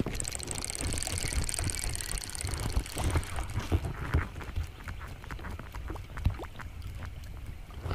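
Pedal drive of a Native Watercraft Slayer Propel kayak whirring as it is pedalled along. It makes a fine, rapid whir that stops about three and a half seconds in, followed by scattered light clicks and knocks.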